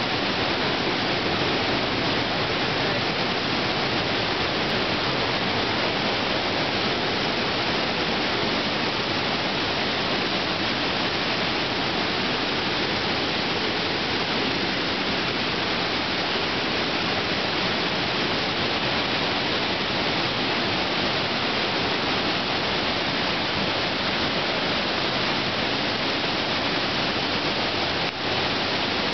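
The underground Orbe river's cascade rushing steadily through a cave: an even, unbroken noise of falling water.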